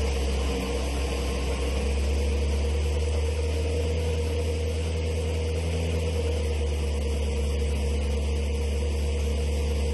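Ferrari F40's twin-turbocharged V8 idling with a steady, even low drone.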